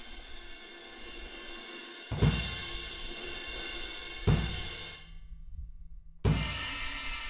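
Owl Dark 19-inch Ancient crash cymbal struck twice with the bass drum, each crash ringing out in a long wash. The ring cuts off suddenly about five seconds in, and after about a second of quiet a new crash with the kick lands on the 24-inch ride.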